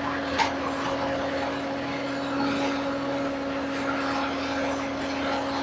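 Skid steer loader engine running at a steady speed, with one short knock about half a second in.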